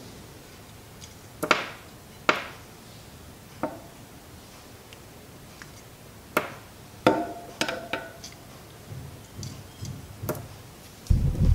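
Sharp small metallic clicks and taps, about eight spread irregularly, with a couple ringing briefly, from a tool and steel bearing balls at the open bearing cup of a bicycle wheel hub. A low handling thump comes near the end.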